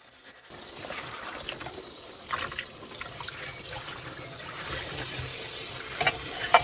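Kitchen tap turned on about half a second in, water running steadily into the sink during dishwashing, with a few short clinks of dishes.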